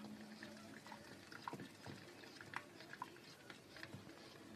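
Faint, scattered clinks and scrapes of a spoon against a saucepan while milk thickened with flour and water is stirred, with a low steady hum that stops about a second in.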